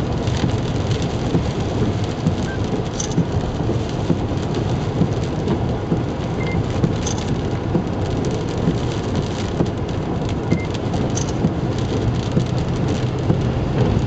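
Rain pattering steadily on a moving car, with a low rumble of tyre and road noise, heard from inside the cabin.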